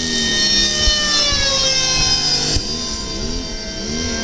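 RC model jet flying overhead: a high whine of several tones over a steady rush, sliding down in pitch as it passes, with an abrupt change about two and a half seconds in.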